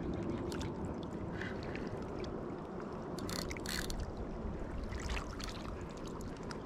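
Small waves lapping against a rocky lake shore over a steady low rumble, with a few faint clicks near the middle.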